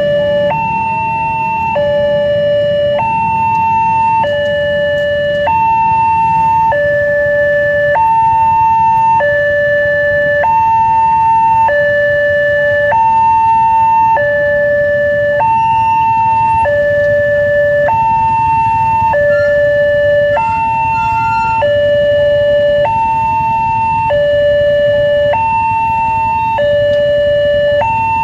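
Railway level-crossing warning alarm from the loudspeaker on the crossing signal: an electronic two-tone hi-lo alert, each tone held about a second. This is the common crossing-alarm sound. A low rumble runs underneath.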